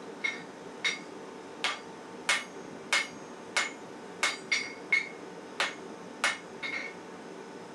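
Hand hammer striking steel on an anvil during axe forging, about a dozen ringing blows at an uneven pace of one to two a second, over a steady rushing noise.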